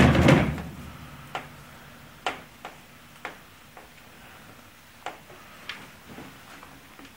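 Battery-charger cables and clamps being handled and clipped onto a 12-volt car battery's terminals: a louder clatter right at the start, then about ten scattered light clicks and knocks.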